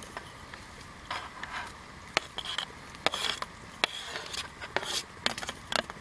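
Chopped tomatoes being scraped off a plastic cutting board into a metal camp pot: a scattered series of light knocks and clicks of the board against the pot, with a few short scrapes.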